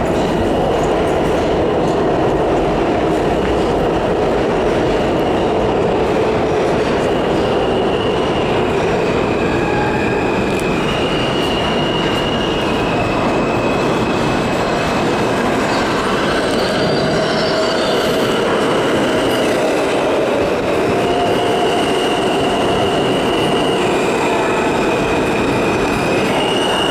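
New York City subway train running through the station, loud and steady, with high squealing tones from the steel wheels that step up and down in pitch every second or two.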